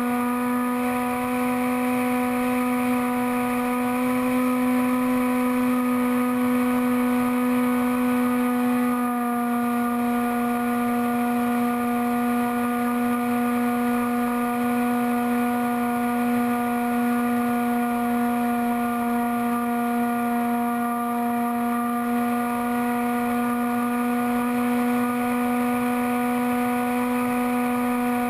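Bixler RC plane's electric motor and pusher propeller running at steady cruise throttle, heard from on board as a constant droning hum, with a slight change in pitch about nine seconds in.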